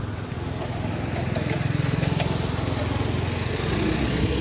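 Small vehicle engine running close by with a fast low putter, growing louder over the first two seconds and then holding steady.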